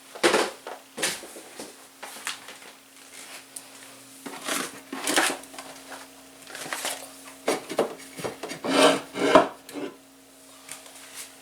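Pantry items being taken off a cupboard shelf: containers and packages knocking, clattering and rubbing against the shelf and each other at an irregular pace, the loudest cluster near the end.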